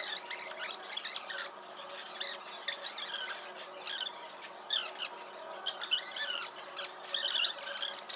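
Close-up eating sounds: wet chewing and lip smacking from rice and grilled chicken eaten by hand. There are many short, irregular high squeaky smacks throughout.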